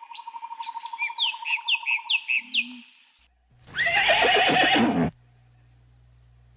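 Birds calling, a fast steady trill under repeated short falling chirps, cut off about three seconds in; then a horse neighs once, loudly, for about a second and a half.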